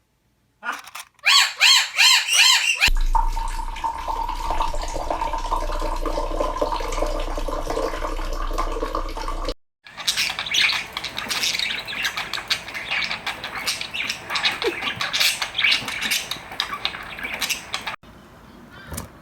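Pet birds calling and squawking across several short clips separated by sudden cuts, starting with a fast run of repeated rising chirps. In one clip a steady low hum runs under the calls.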